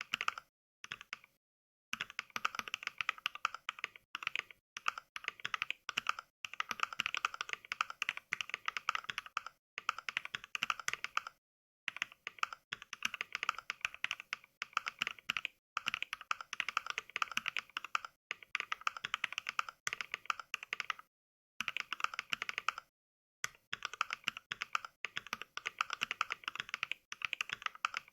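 Mechanical keyboard typing simulated by the Mechvibes NK Cream sound pack, which plays a recorded switch click for every keystroke. Fast runs of keystrokes are broken by short pauses every second or two, and the pauses fall to dead silence.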